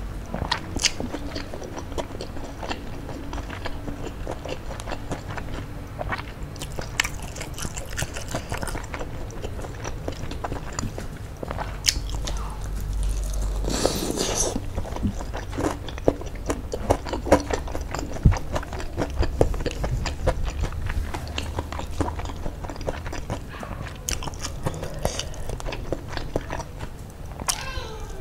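Biting and chewing of spicy sauce-coated fried chicken: many short crackling clicks from the crust, with a longer, louder stretch about halfway through during a big bite.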